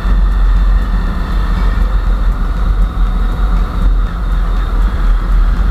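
Steady riding noise from a moving motorcycle: a deep rumble of wind on the microphone mixed with the engine running at an even pace.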